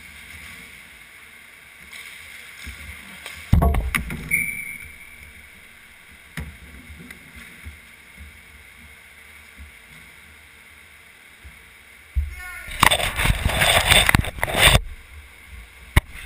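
Inline hockey play heard from inside the goal net: knocks and clatter of skates, sticks and puck on the sport-court floor, with a loud knock about four seconds in. From about twelve to fifteen seconds in comes a long, loud scraping rumble as the goalie's leg pad rubs against the camera, followed by a couple of sharp clicks.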